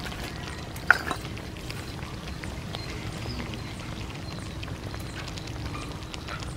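A pot of fish stew bubbling as it simmers, with many small pops and one sharper click about a second in.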